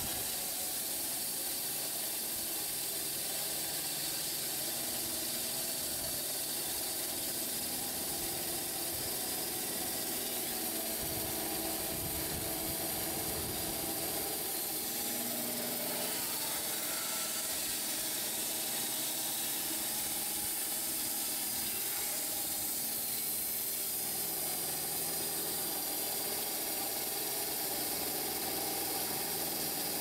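Band sawmill running with its blade cutting through a thick pear log, a steady hissing whine with no break.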